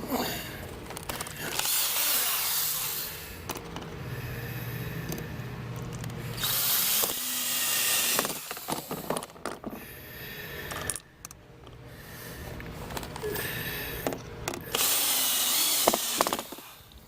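Cordless power driver running in several short bursts as screws are driven into the plastic deck box, with scattered clicks and knocks of the parts being handled.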